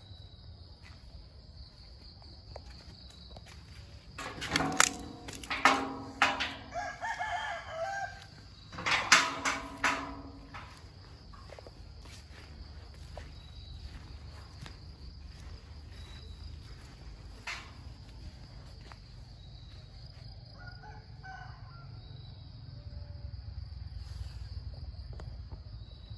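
A rooster crowing several times, loud and close, between about four and ten seconds in, over a steady high insect trill.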